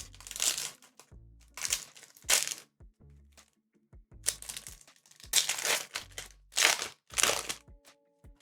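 Foil Pokémon booster pack wrapper crinkling in a series of short bursts as it is torn open and handled.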